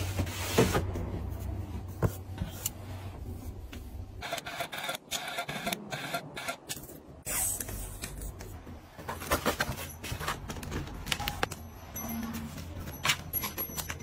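Close-up handling sounds of household organizing: clicks, taps and plastic scrapes. Partway through, a small thermal label printer feeds out a strip of printed labels.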